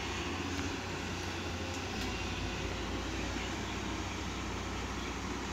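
Diesel engine of a Volvo crawler excavator running steadily under load as it digs, a low even hum with a few faint ticks.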